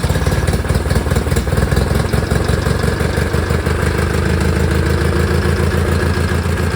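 1990s Craftsman riding lawn mower engine running steadily with rapid, even firing pulses just after catching: the no-start caused by bad wiring, which had left it without spark, is cured.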